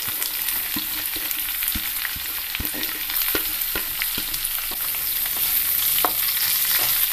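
Sliced onions sizzling in hot coconut oil in a frying pan, stirred with a wooden spatula, with a steady frying hiss and scattered light taps and scrapes.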